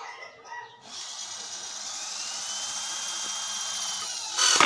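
Corded electric drill running steadily as it bores holes into a clamped hardwood block, the row of holes that roughs out the slot of a wooden hand plane's body. It starts about a second in and gets louder near the end.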